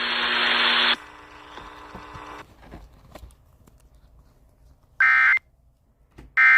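A burst of radio static hiss for about the first second, fading away over the next second or so. Then two short screeching data bursts of the Emergency Alert System's end-of-message (EOM) code, a bit over a second apart; the second starts near the end.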